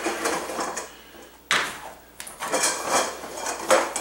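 Parts of a stackable shoe rack clattering and knocking together as they are lifted out of the box, with a sharp knock about a second and a half in and another near the end.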